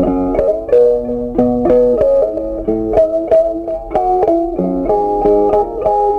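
Background instrumental music: a plucked-string melody, guitar-like, with several quick notes a second.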